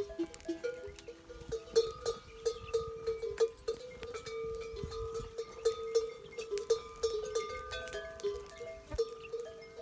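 Metal bells on a herd of camels clanking irregularly, several ringing tones at different pitches overlapping.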